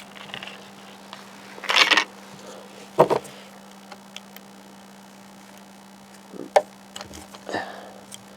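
Hands working a license plate light fixture and bulb: a brief rustle about two seconds in, then a sharp click and a few small clicks and knocks, over a faint steady hum.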